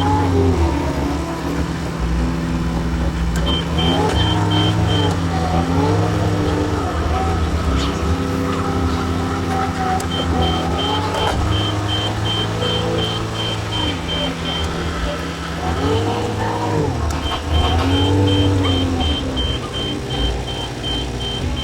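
John Deere 410 backhoe's diesel engine running under hydraulic load, its pitch dipping and recovering again and again as the loader and hoe work. A reversing alarm beeps rapidly in stretches: from about three and a half seconds, again from about ten to fourteen seconds, and from about seventeen seconds on.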